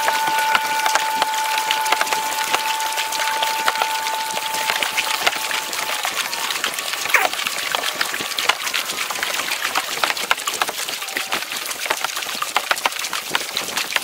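Kayak paddle strokes: blades dipping and splashing, with water dripping and lapping against the hull in a dense crackle of small clicks.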